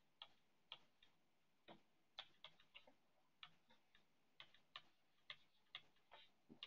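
Faint, irregular clicks of a stylus tip tapping on a tablet's glass screen during handwriting, a few a second.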